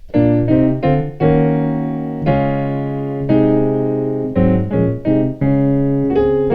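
Piano playing a gospel chord movement: a string of full block chords, three quick ones in the first second, then longer chords each held a second or so as they fade, and a run of short chords near the middle.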